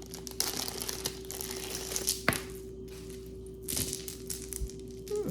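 Packaging crinkling and rustling while a piece of jewelry is unwrapped and handled, with a sharp click a little past two seconds in.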